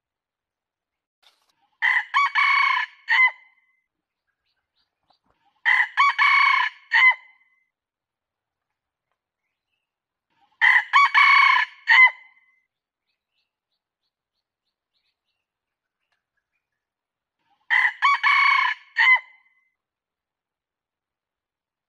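Red junglefowl rooster crowing four times, each crow a short, broken phrase of about a second and a half, with several seconds of silence between crows. It is a lure call recording for attracting wild junglefowl.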